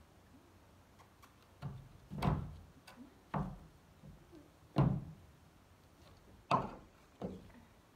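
A pony's hooves knocking on a wooden loading ramp as it shifts its front feet: about six irregular knocks, the loudest about five seconds in.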